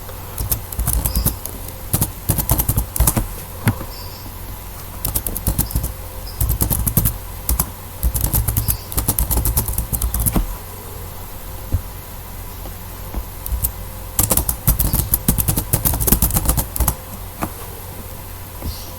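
Typing on a computer keyboard in irregular bursts of rapid key clicks with short pauses, over a steady low hum. This is a package-install command being typed at a terminal.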